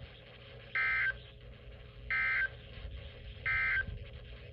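Emergency Alert System end-of-message signal: three short, identical buzzy digital data bursts, about a second and a half apart, marking the end of the alert.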